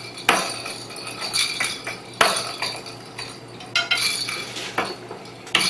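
A small spoon clinking against a dish several times during feeding: sharp taps, each with a short ring, the loudest about two seconds apart.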